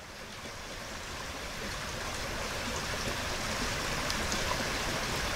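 Small woodland stream running: a steady rush of flowing water that swells in over the first two seconds or so.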